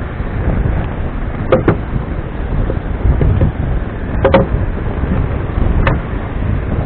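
Strong wind buffeting the microphone, a loud uneven low rumble, with a few short knocks.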